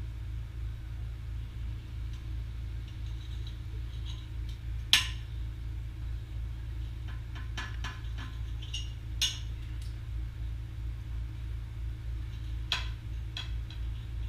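Knife and fork scraping and clinking on a glass plate as steak is cut, with a few sharp clinks, the loudest about five seconds in and others near nine and thirteen seconds. A steady low hum runs underneath.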